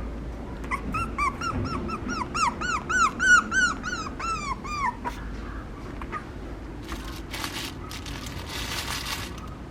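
Papillon puppy giving a quick run of short, high yipping whimpers, about four a second, for roughly four seconds. Later there are some rustling noises.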